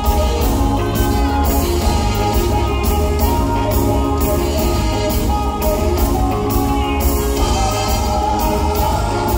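Reggae band playing live over a loud hall PA: heavy bass, electric guitar and a steady beat of drums and cymbals, with the singer's voice over it.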